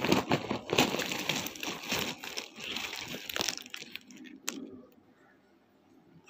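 Chunks of roasted nakumat clay clattering and grating against each other as a rubber-gloved hand digs into the pile and scoops up a handful. The clatter ends with a sharper click about four and a half seconds in.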